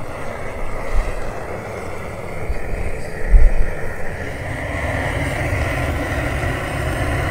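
A motor vehicle running, with a steady low rumble and a heavy bump about three and a half seconds in. A tone rises slowly through the second half.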